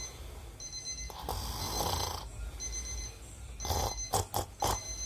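A man snoring in his sleep while an electronic alarm beeps in short high bursts about once a second. A few short sharp sounds come around four seconds in.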